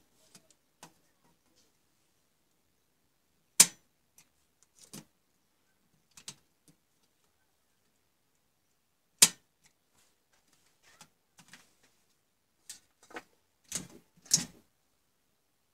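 Miniature circuit breaker toggles being switched: two sharp, loud clicks about six seconds apart, then a quick run of lighter clicks and taps near the end.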